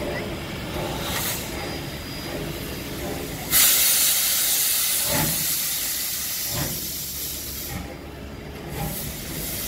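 Steam locomotive B 1429 pulling away. A sudden loud hiss of steam starts about three and a half seconds in and slowly fades, with slow exhaust chuffs under it, then hisses up again near the end. The hiss is steam blowing from the open cylinder drain cocks as the engine starts off.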